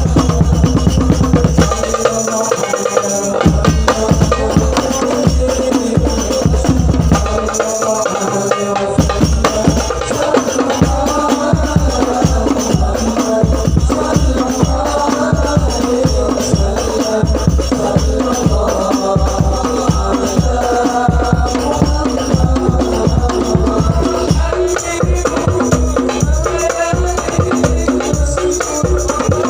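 Instrumental passage of sholawat music: busy hand percussion with jingles and drum beats under a sustained melodic line, with no singing.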